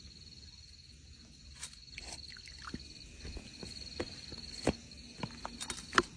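An insect trilling steadily in a high, finely pulsing tone, with scattered clicks and knocks over it; the loudest knock comes near the end.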